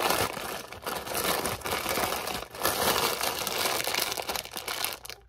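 Plastic wrapping of a Mi Sedaap instant-noodle multipack crinkling and rustling in irregular bursts as hands pull the packets out of the outer bag.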